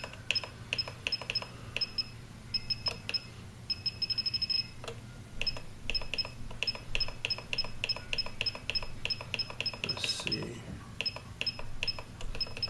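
Hobby RC transmitter running ER9X firmware, its menu buttons clicking and beeping with each press: short high beeps a few a second, with a quick run of rapid beeps about four seconds in, as the menus are scrolled through.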